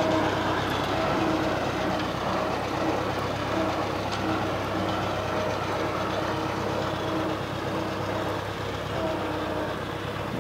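Wheeled farm tractor's diesel engine running steadily as the tractor drives away, growing slightly fainter.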